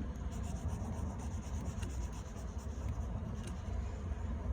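Drawing on paper: a marker or crayon tip rubbing and scratching across the sheet in short, quiet strokes over a low steady hum.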